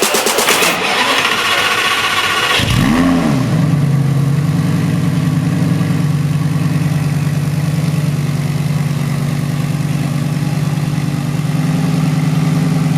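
A car engine starts about two and a half seconds in, blips briefly up and back down in pitch, then settles into a steady idle with an even pulse.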